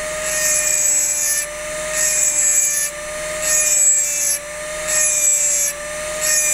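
High-speed rotary engraving drill with a small diamond ball burr grinding into wet crystal glass. A steady motor whine runs under a gritty hiss that comes in about five strokes of roughly a second each, the burr lifting off briefly between them.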